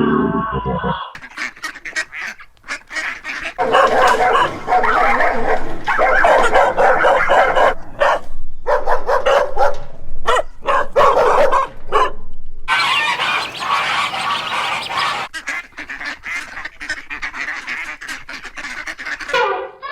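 A flock of birds calling, many loud overlapping honking calls in bouts with short breaks about a third and two-thirds of the way through.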